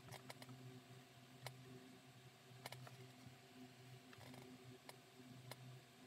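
Near silence: a low steady hum with a scattered handful of faint, sharp clicks from hands handling a small leather piece and a fine brush while painting its edge.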